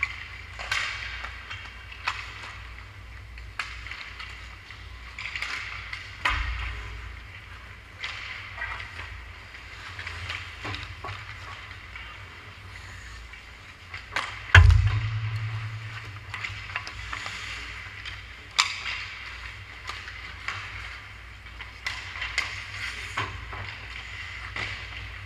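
Ice hockey play on an indoor rink: skate blades scraping and carving the ice and sticks clacking on pucks, over a steady low hum. One loud, hard knock stands out about halfway through.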